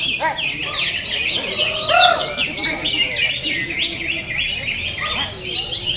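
Caged songbirds, cucak ijo (green leafbird) among them, singing at once in a dense chorus of rapid, overlapping chirps and trills. A few lower whistled notes stand out, one about a third of a second in and a louder one about two seconds in. This is the kind of busy multi-bird song used as contest 'therapy' or bait audio to stir a cucak ijo into singing.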